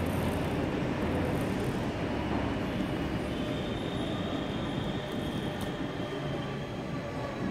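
Electric locomotive of an Intercity 2 train rolling slowly into a station platform: a steady rumble, joined about three seconds in by a thin high whine made of several steady tones.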